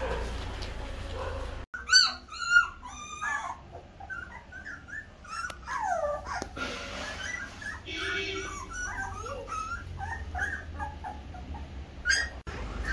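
Great Dane puppies whimpering and squealing: many short, high-pitched cries that rise and fall and overlap. They start suddenly about two seconds in, loudest at first, then continue more softly with scattered yips.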